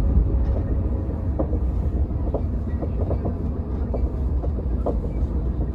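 Passenger train running along the track: a steady low rumble with scattered short clicks and squeaks.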